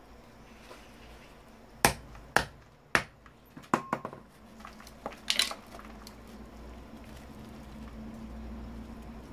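About seven sharp knocks and clacks in quick succession, from hand tools striking and prying at the parts of an old Samsung computer monitor being dismantled.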